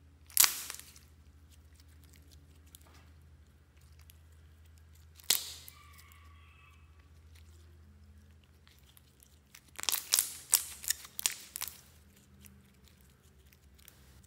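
Glossy slime being squished and stretched by hand: a sticky crackling pop about half a second in, another near five seconds, then a run of crackles and pops from about ten to twelve seconds.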